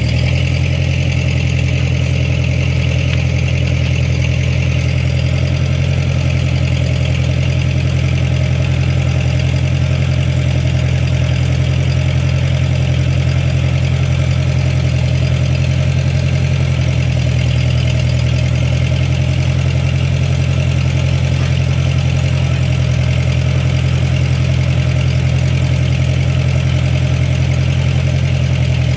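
Ford 8N tractor's four-cylinder engine running steadily at an even, unchanging speed.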